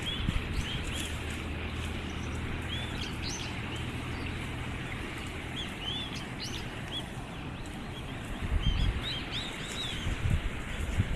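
Small birds chirping: short, arching high calls, some singly and some in quick pairs, scattered over a steady background hiss. A low hum fades out about halfway, and a few low thumps come near the end.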